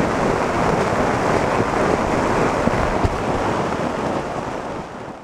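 Heavy rain and strong wind lashing a small dome tent, heard from inside it: a loud, steady rush of rain on the fabric with wind buffeting the microphone, easing slightly near the end.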